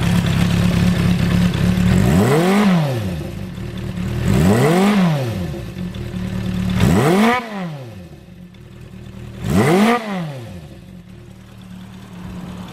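Honda CB400F's 408 cc air-cooled inline-four idling through a chrome Yoshimura 4-into-1 exhaust, with the throttle blipped four times about two and a half seconds apart, each rev rising and dropping back to idle.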